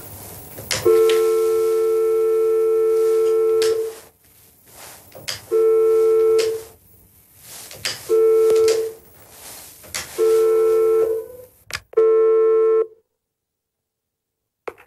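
Desk telephone buzzing with a loud, steady electronic tone: one long buzz of about three seconds, then four shorter buzzes of about a second each, evenly spaced. A sharp click comes just before the last buzz.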